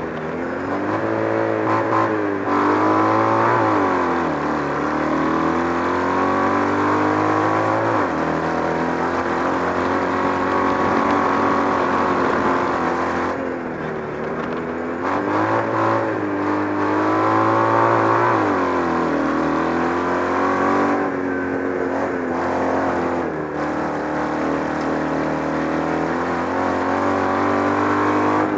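Onboard sound of a kart cross buggy's Citroën 2CV 602 cc air-cooled flat-twin engine at racing speed, its revs repeatedly climbing and then dropping back several times.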